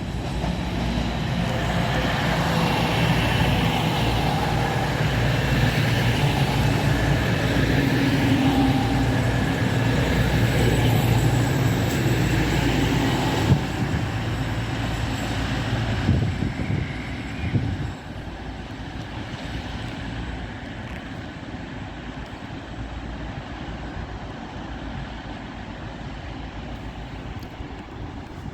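East Midlands Railway Class 222 Meridian diesel multiple unit pulling into the platform, its underfloor diesel engines running with a loud, steady low rumble. A single sharp knock comes about thirteen seconds in, and the sound drops sharply to a quieter steady running about eighteen seconds in.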